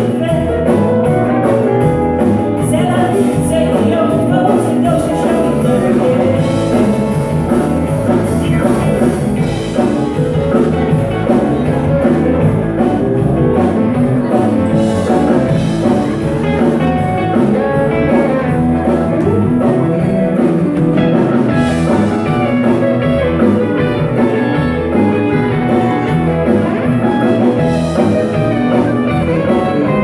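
Live country-rock band playing with electric guitars, keyboard and drum kit, a woman singing lead.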